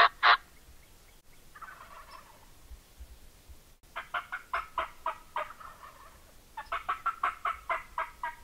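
Wild turkey calling: a faint gobble about two seconds in, then two runs of quick, sharp yelping notes at about four a second, the second run starting about two-thirds of the way through.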